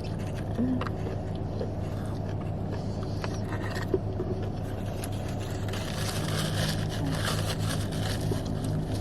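Steady low hum of a car heard inside the cabin, with a few small clicks and light rustling and scraping from about six seconds in.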